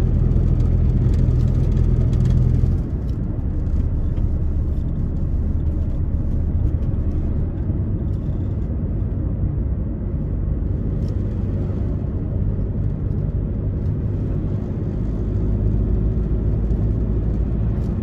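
Car driving on a road: steady engine and tyre rumble, dropping slightly about three seconds in.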